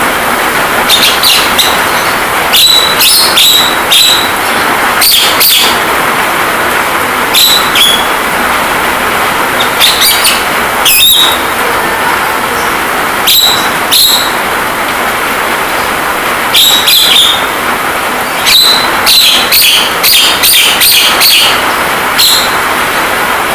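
Javan myna calls: short, sharp chirps and whistles, coming singly and in quick clusters every second or two, over a steady hiss of rain sound played as rain therapy.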